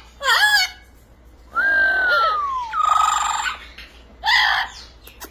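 Talking parrot vocalising without words: a short call, then a long whistle falling in pitch, followed at once by a harsh buzzy squawk, and another short call near the end.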